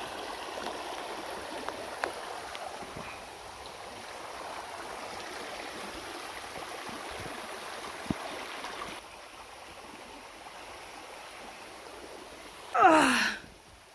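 Steady rushing of a flowing stream, which turns quieter about nine seconds in. Near the end a short, loud vocal exclamation glides downward in pitch.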